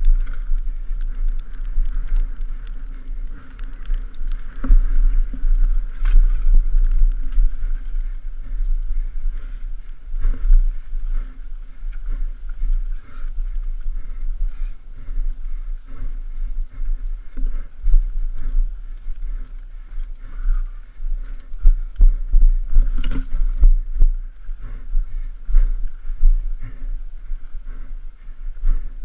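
Mountain bike rattling and knocking over rough trail, with heavy wind rumble buffeting the helmet-mounted camera's microphone.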